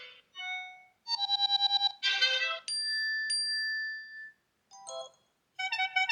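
Short iPhone ringtone and alert-tone snippets played one after another, each a different electronic chime melody with brief pauses between. About a second in comes a quick run of repeated notes and a falling run, then a sustained bell-like chime struck twice, then more short note runs near the end.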